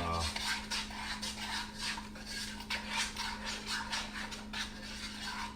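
Repeated short rasping scrapes in a pot as more seasoning is worked into a crab-boil sauce, several strokes a second, over a steady low hum.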